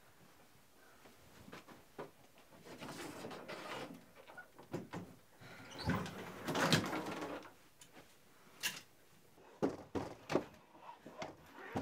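Someone rummaging in a bedroom closet: rustling of clothes and things being moved, then a run of sharp knocks and clicks near the end.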